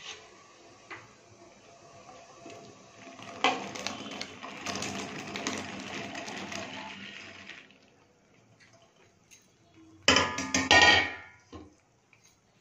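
Dried jujube berries poured from a metal bowl into hot salted water in an aluminium kadai, a rattling, splashing tumble lasting about four seconds. About ten seconds in comes a short, loud metal clatter with a ringing tone.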